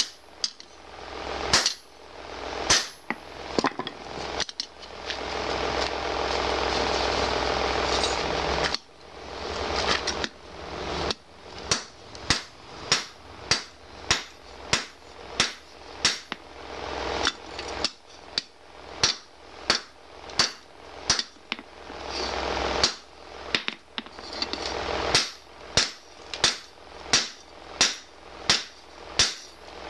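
Hand hammer striking a red-hot 52100 bearing-steel parang blade on a steel anvil: sharp metal-on-metal blows, uneven at first, then a steady rhythm of about one and a half strikes a second. Between about four and nine seconds the blows stop and a steady rushing noise with a low hum runs instead.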